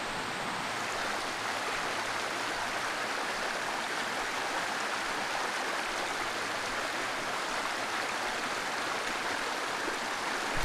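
Steady rush of water from a rocky trout stream, the East Branch Deerfield River, running over riffles and small cascades.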